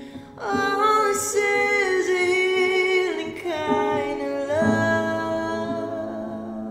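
A woman singing a slow worship song, sliding up into long held notes over a sustained instrumental accompaniment.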